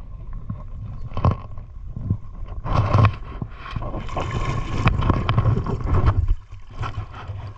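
Water sloshing and splashing in surges, the strongest about three seconds in and again from about four to six seconds, over a low rumble of wind on the microphone.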